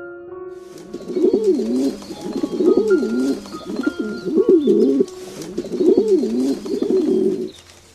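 Pigeon cooing: about five repeated coos, each a quick rise and fall in pitch, following a few notes of background music at the start.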